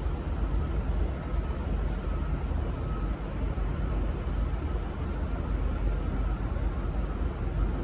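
Steady low rumble and hiss of railway station ambience, with a faint steady tone above it; no horn sounds.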